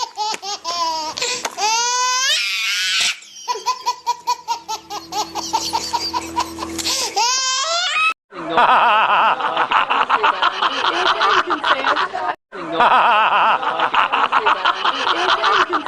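Laughter sound effect: a high-pitched, rapidly pulsing laugh with swooping rises and falls for about eight seconds. It then cuts to a fuller, denser stretch of laughter, broken briefly about two-thirds of the way through.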